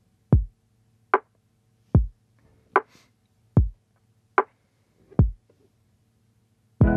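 Sparse sampled drum beat from a Roland SP-404 sampler: kick and snare alternating, one hit about every 0.8 seconds with nothing between them. Near the end a held electric-piano chord comes in together with a kick.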